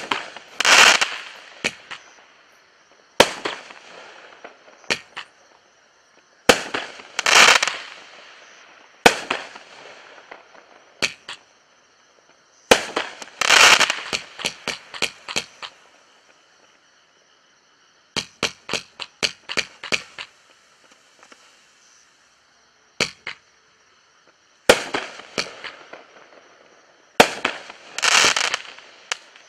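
A Bright Star '1 Minute Ride' 500-gram, 42-shot consumer fireworks cake firing: sharp launch and burst reports every few seconds, several followed by about a second of loud rushing noise. About two-thirds through there is a quick run of small pops.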